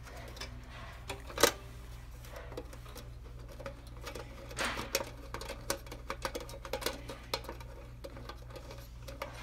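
Scattered clicks and light metallic ticks from hands working screws out of a cup sealing machine's sheet-metal cover, with one sharper click about one and a half seconds in and a denser run of ticks in the middle, over a steady low hum.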